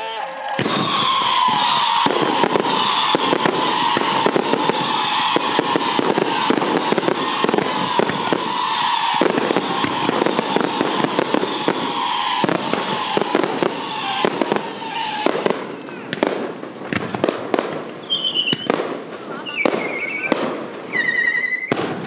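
Aerial fireworks going off: a dense, rapid crackle of many bangs with a steady high whistle for about fifteen seconds, then thinning to separate bangs and short whistling tones near the end.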